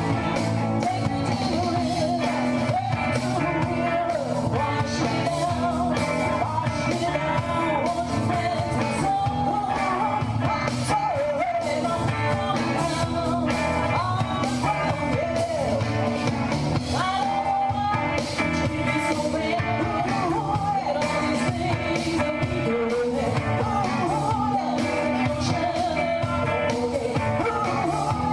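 Live rock band playing a song: a woman sings lead over electric guitars and a drum kit with a steady beat.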